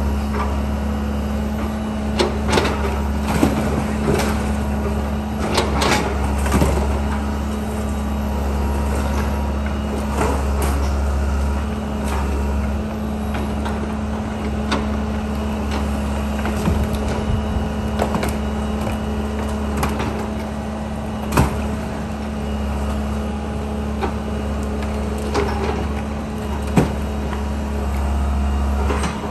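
John Deere excavator's diesel engine running steadily while the machine tears into a building, with scattered crashes and cracks of breaking and falling debris, a cluster in the first seven seconds and two sharp ones later on.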